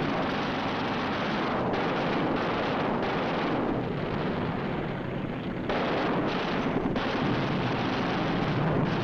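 Wartime film soundtrack of an air battle: a dense, continuous din of aircraft engines and gunfire that shifts abruptly several times.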